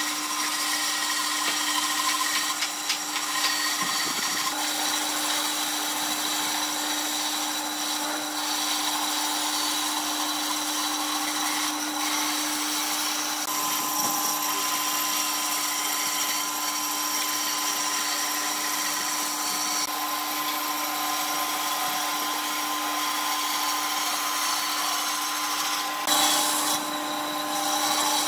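Bandsaw running with a steady hum, its blade cutting through thick wooden boards along curved lines. The tone shifts a little about halfway through as a different board is cut, and there is a brief louder rasp near the end.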